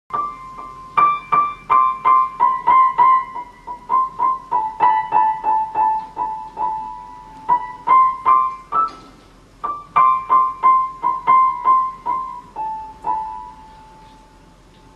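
A cat playing an acoustic piano with its paws: single high notes and small clusters struck unevenly, two or three a second, each ringing and dying away. There is a short break about nine seconds in, and the last note rings out on its own near the end.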